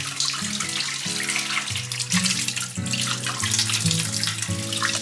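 Kitchen faucet running, its stream splashing over a red bell pepper turned in the hands under it; the water sound cuts off at the end.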